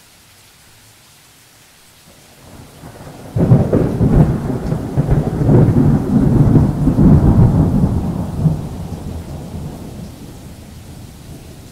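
A thunderclap: a low rumble builds, then a sudden loud crack about three seconds in, followed by several seconds of rolling rumble that slowly fades, over a steady faint hiss.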